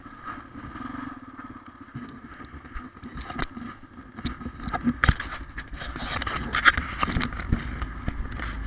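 Honda TRX250 ATV's single-cylinder four-stroke engine running at low speed. From about five seconds in, a low rumble and many sharp knocks and clatters join it.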